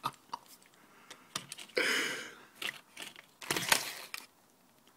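Scattered light clicks and taps of a screw and fixing being worked against a brick wall, with a short rough hiss about two seconds in and a cluster of clicks near the end.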